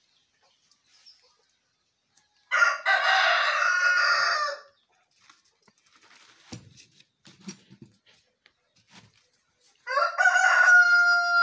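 A rooster crowing twice, each crow about two seconds long, the second ending on a held note.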